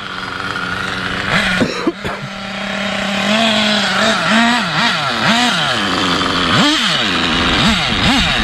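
Nitro RC car's small glow-fuel engine running at a steady note, then revving up and falling back again and again, about six times in the second half.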